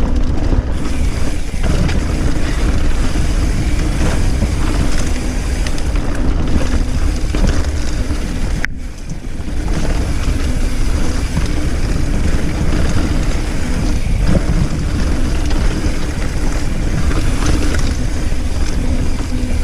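Wind buffeting the microphone and the rumble and rattle of a mountain bike rolling over a rough trail, a loud steady rush with a brief lull about nine seconds in.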